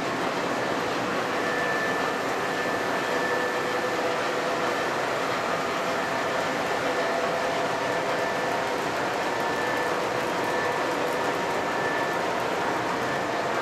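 O scale model trains running on the layout: a steady rolling rumble of metal wheels on the track with a faint steady whine from the locomotive motors.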